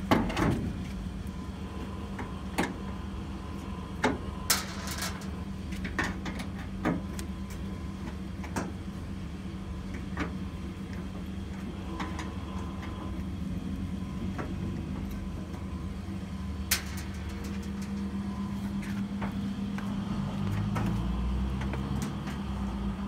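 A steady low mechanical hum, slightly louder in the last third, with scattered sharp clicks and knocks of hard parts being handled.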